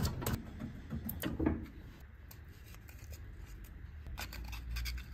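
Hand-handling sounds as a worn sandpaper cone on a breaster cone is changed for a fresh one: a quick run of clicks and taps, then quieter rubbing and a few more clicks near the end. A faint low hum runs underneath.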